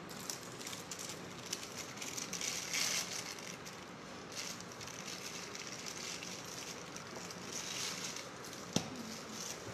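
Soft crinkling and rustling of a plastic piping bag being squeezed to pipe small drops of whipped cream, with faint ticks and one sharp click near the end.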